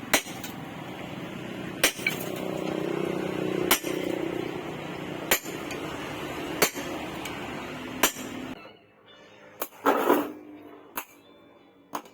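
A hammer striking steel as a knife blade is forged: six sharp, evenly spaced blows about every second and a half over a steady rushing background. The background stops about eight and a half seconds in, followed by a short rushing burst and a few lighter clinks.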